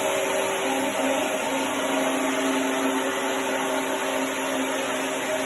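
RO-2200 single-disc floor machine running steadily while sanding a trowelled mineral floor: an even motor hum over a constant grinding hiss.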